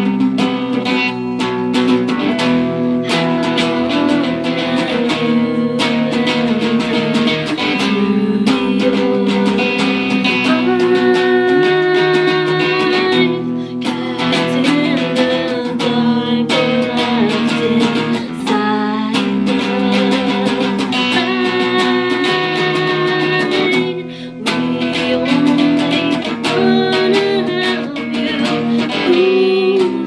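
Live music: an electric guitar strummed through an amplifier, with a voice singing over it.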